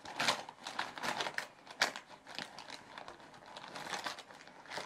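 Hands rummaging through a zipped fabric pencil pouch: a busy run of small clicks and clatters as pens and markers knock together, with the fabric rustling, stopping just before the end.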